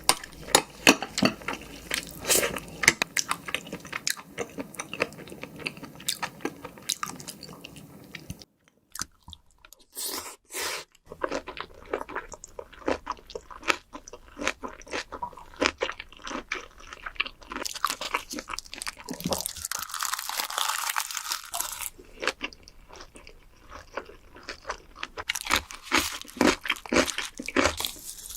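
Close-miked mukbang eating of soy-sauce-marinated raw shrimp: wet chewing and crunching with many sharp mouth clicks. It stops briefly about a third of the way in, then goes on with a different eater, with a stretch of hissy noise in the second half.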